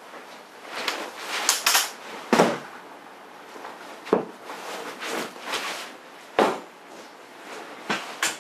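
A person moving about close by, with rustling and four sharp knocks spaced about two seconds apart.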